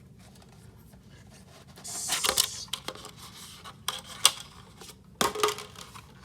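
Packaging handled while unboxing: a rustle of plastic or cardboard about two seconds in, then a few sharp clicks and knocks as the alarm is taken out of the box.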